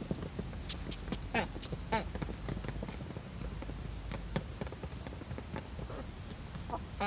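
Barred Rock and Australorp hens pecking feed from a tray: a dense, irregular patter of beak taps. A few short, soft hen calls come about one and a half and two seconds in.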